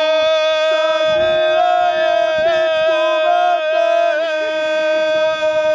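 Men singing a folk song in close harmony: one long held note with a second, lower voice holding a drone beneath it, with a few brief wavers in pitch.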